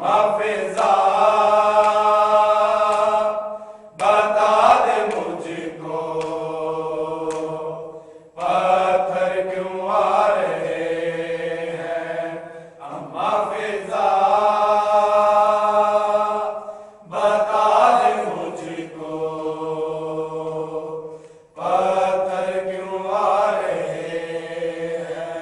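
Men's voices chanting a noha, a Shia mourning lament, unaccompanied by instruments, in long held phrases of about four seconds each with short breaks between.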